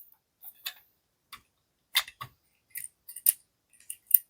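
Scattered light clicks and knocks as a Parkside PHSS 3 B1 handsaw is handled: irregular, with the loudest clicks about two seconds in and just past three seconds.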